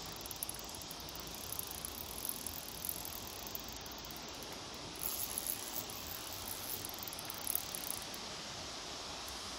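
Fishing reel whirring in fast, rattling stretches as a hooked barbel is played on a bent rod, falling away about eight seconds in, over a steady outdoor hiss.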